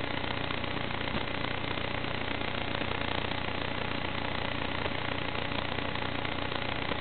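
Steady, even rushing hum from an FPV quadcopter in flight, heard through the audio channel of its analog video link, with nothing in the high end.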